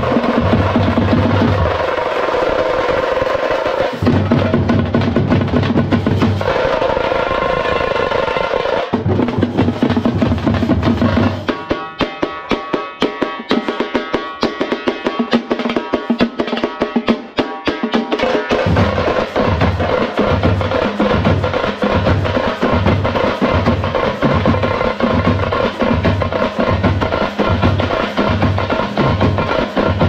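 Background music with drums and a steady, deep beat, giving way to a fast drum-roll passage in the middle before the beat returns.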